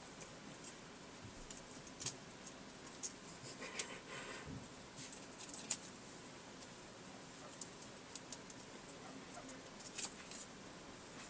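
Sheltie puppies about five weeks old scuffling and wrestling on a towel over a tile floor: faint, irregular light clicks and scratches of small claws and rustling fabric, busiest about four seconds in.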